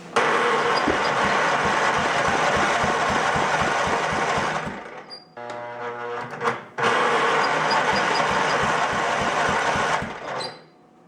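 Riding-mower engine turned over by its electric starter: two long bursts of cranking, about five and three seconds, with a short pause between.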